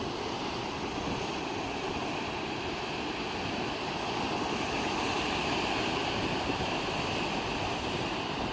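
Sea waves washing ashore: a steady rush of surf that swells slightly about halfway through.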